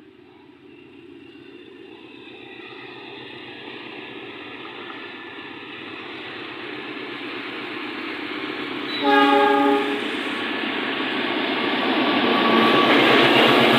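Diesel-hauled passenger train approaching, its engine and running noise growing steadily louder, with one short blast of the locomotive horn about two-thirds of the way in.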